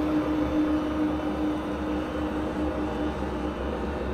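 Steady machine hum: one constant mid-pitched tone over a low rumble, with no change in speed.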